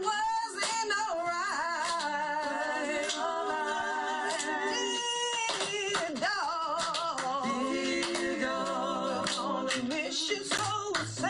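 A woman singing a slow, soulful melody with wavering vibrato and sliding runs between notes.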